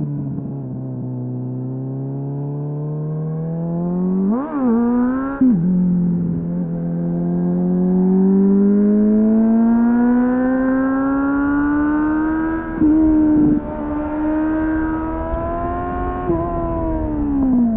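Suzuki GSF 600 Bandit's inline-four through an aftermarket slip-on exhaust with a dB killer, heard onboard. The engine goes from a low cruise to two quick throttle blips about four seconds in, then makes a long pull with steadily rising revs and a brief dip around the middle, before the throttle closes and the revs fall near the end.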